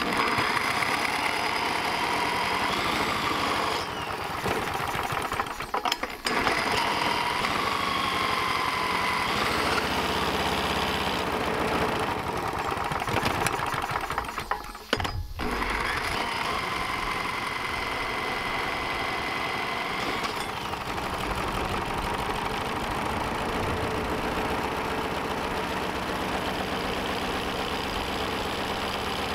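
An electric drill spinning a push lawnmower's small single-cylinder engine by its flywheel nut, its motor whine rising and falling, with brief stops. In the last third the engine runs steadily on its own, fed only on brake parts cleaner vapors.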